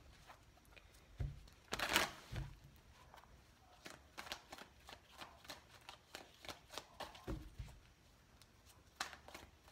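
A deck of tarot cards being shuffled by hand: soft, irregular flicks and slides of the cards, with a louder shuffle burst about two seconds in and a few dull thumps.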